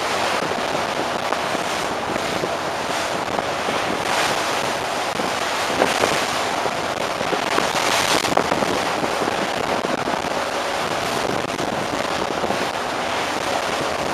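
Wind buffeting the microphone with a steady crackle, over the rushing wash of the sea along a moving ferry's hull.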